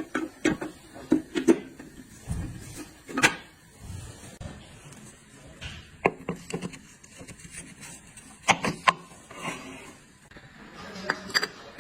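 Scattered knocks, clicks and rubs of transmission parts being handled and fitted during assembly, the loudest knock about three seconds in and two sharp ones close together near the end.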